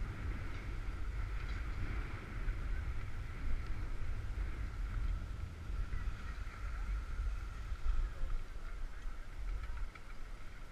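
Wind buffeting the microphone of a camera carried down a ski slope: an uneven low rumble with a faint steady hiss above it, dropping abruptly near the end.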